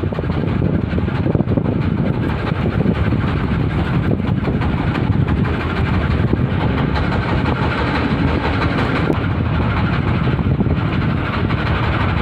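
Wind buffeting a phone's microphone at sea, a loud, steady rumbling rush with constant flutter.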